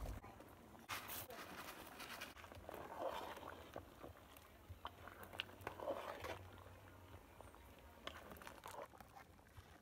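Pot of soup bubbling on a wood fire while a long metal spoon stirs it, with scattered small clicks and soft sloshes.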